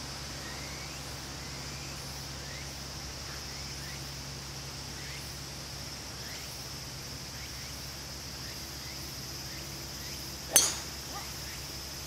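A golf club strikes a ball once, about ten and a half seconds in: a sharp, metallic ping with a brief ring. Behind it is a steady high hiss with faint rising chirps.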